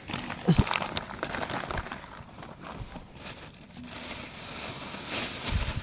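Paper food wrapper and plastic bag crinkling and rustling as a double-wrapped packet of fried rice is opened and handled, with scattered small crackles.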